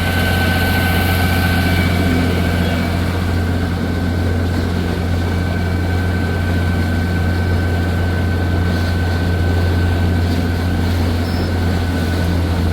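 Freshly overhauled Chrysler Crown flathead straight-six marine inboard running steadily under way, a deep even drone with a thin steady whine above it.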